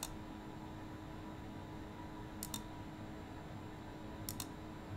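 A few short, isolated clicks from computer keyboard and mouse use during code editing: one at the start, a quick pair about two and a half seconds in, and another pair near the end, over a low steady hum.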